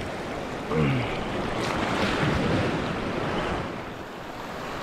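Sea surf washing and breaking over shore rocks, swelling about two seconds in, with wind buffeting the microphone. A short falling vocal grunt cuts in about a second in.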